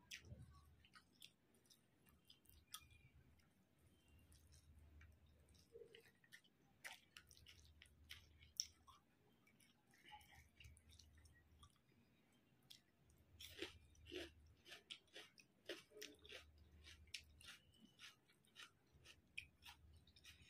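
Quiet, close-miked chewing of a mouthful of rice and chicken curry eaten by hand, with many small crunchy clicks and soft wet mouth sounds.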